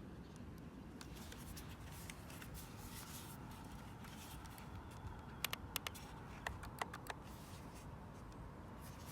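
Faint steady background hiss, with a quick run of about eight small sharp clicks about halfway through.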